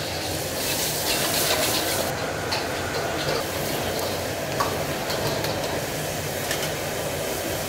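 Oil and sauce sizzling in a hot wok as it is stirred, with the steel ladle scraping and clinking against the pan now and then.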